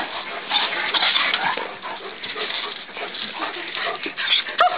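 Dogs whining and yelping, excited at being let out for a walk, with one sharp, high yelp near the end.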